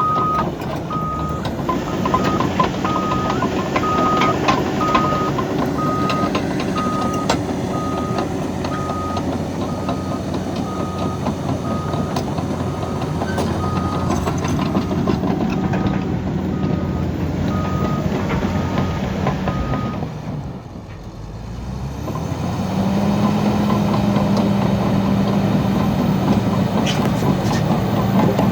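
Caterpillar D6N bulldozer's diesel engine running under load with clanking tracks, its backup alarm beeping about one and a half times a second while it reverses. The beeping stops about 20 seconds in, the engine briefly drops, then runs on steadily at a higher pitch as the dozer moves again.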